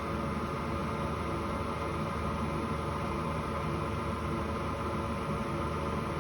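Lathe running steadily, spinning a bicycle hub bearing cone as it is polished with compound on paper. It gives an even hum with several constant tones.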